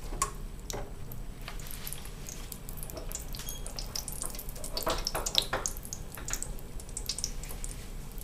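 Hot oil in an electric deep fryer at 375°F sizzling and crackling around an all-beef skinless hot dog just lowered into it in the fryer basket. Scattered sharp pops run throughout, with a busier stretch about five seconds in.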